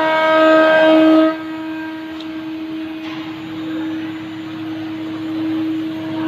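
Acctek 4-axis CNC router's spindle motor running at a steady speed, a high, even whine of unchanging pitch. It is loud for about the first second, then drops to a softer whine with a rushing noise under it.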